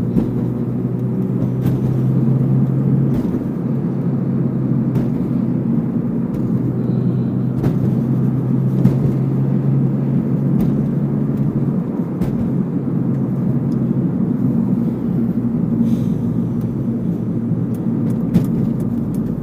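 Manual car's engine and road noise heard from inside the cabin while driving. The engine tone changes at a couple of points as gears are changed, and a few sharp clicks come from the shifter fitted with a short shift adapter, a clicking the driver puts down to the grease he added.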